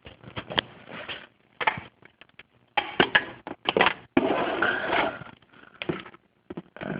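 Irregular knocks, clatters and rustles of handling and moving about, with a longer rustling, scraping stretch about four seconds in.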